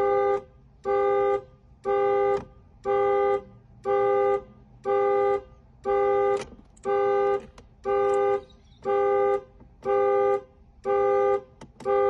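2016 Dodge Dart's warning chime sounding over and over at an even pace, about four chimes every three seconds, each a short multi-note tone.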